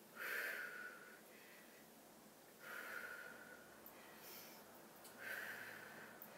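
A woman's breaths, three in a row about two and a half seconds apart, in time with tricep dips on a chair as she breathes through each lower and lift.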